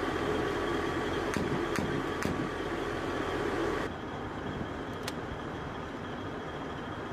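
Steady mechanical drone with a faint high whine, changing abruptly about four seconds in, with a few short, light metallic clicks.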